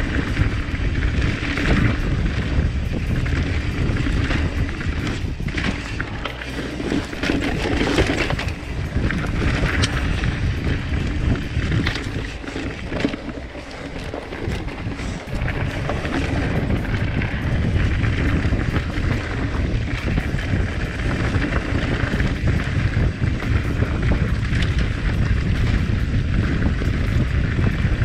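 Wind buffeting an action-camera microphone on a mountain bike descending a dirt singletrack, with knobby tyres rolling on dirt and the bike rattling over bumps; it eases briefly about halfway through.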